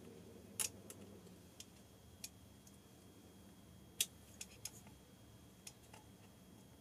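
Faint, scattered clicks and taps of small metal Headshok damper parts being handled and fitted together, the loudest about four seconds in.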